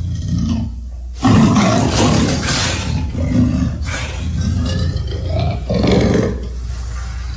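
King Caesar's kaiju roar sound effect: a series of monster roars over a steady low rumble, the loudest starting about a second in and lasting nearly two seconds, with shorter cries after it.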